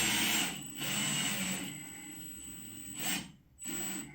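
Work noises from screwing a hinge bracket onto the fridge: a power driver runs briefly with a low hum about a second in, then two short knocks near the end.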